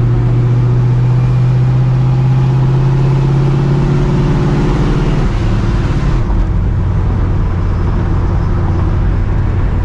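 Straight-piped, cammed V8 (a Procharger-supercharged 5.4 2V) pulling in gear, its low note rising slightly; a little past halfway the pitch drops and the higher hiss fades as the throttle comes off, then the engine runs on at a lower, steady note.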